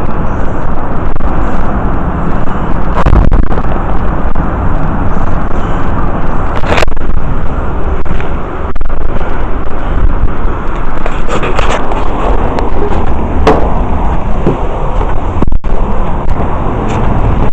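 Strong wind buffeting the microphone: a loud, continuous rumbling roar with a few sharp clicks.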